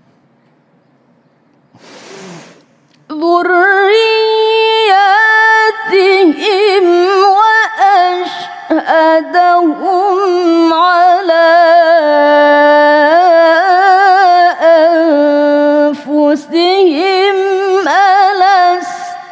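A woman's voice reciting the Quran melodically (tilawah), in long held notes with wavering ornamental turns and only brief breaks. It begins after a quiet pause of about three seconds.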